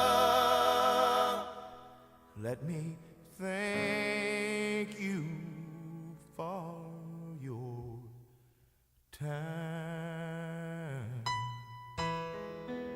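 Background music from a country song: a held note with vibrato fades out about a second and a half in, then an instrumental passage with a sliding lead line over bass, and piano notes ringing near the end.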